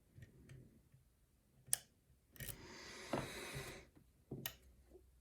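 Small, quiet clicks and ticks from a lock pick and tension wrench working in a challenge lock's keyway, with one sharper click about a second and a half in. A rustling hiss runs for about a second and a half in the middle.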